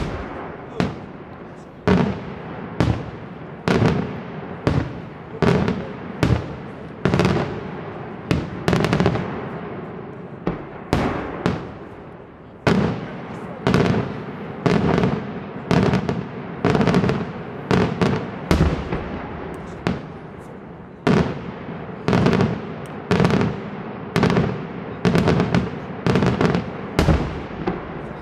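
Daytime fireworks display: a long series of loud aerial shell bangs, about one a second, each trailing off in echo.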